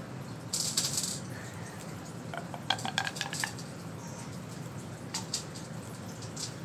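Fidget toys being handled: a short rustle, then a quick run of small hard clinks with a slight ring, and a few single clicks near the end.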